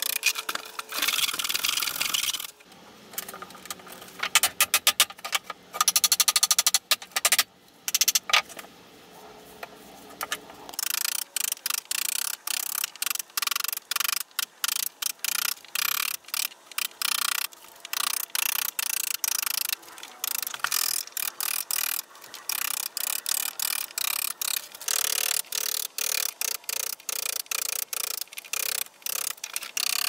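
Wood chisel driven into wood by a soft-faced mallet, carving out chips. Scraping paring cuts and scattered quick knocks in the first half, then a steady run of strikes about twice a second.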